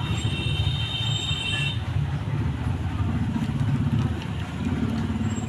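A steady low mechanical hum with a rough, engine-like pulse, with a thin high whine over it for the first couple of seconds.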